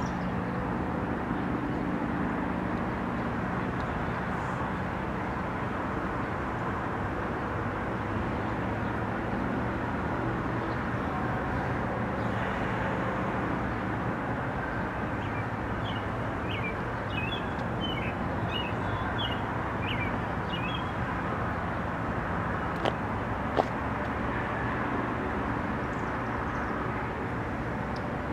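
Steady low rumble and hum of a freight train's diesel locomotives approaching in the distance. Birds chirp for a few seconds in the middle, and two sharp clicks come near the end.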